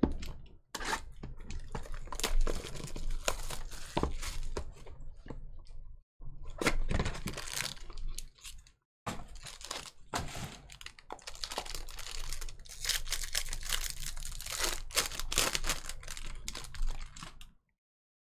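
Trading-card packaging (wrapper and plastic) being torn open and crinkled by hand, in three spells with short breaks, stopping shortly before the end.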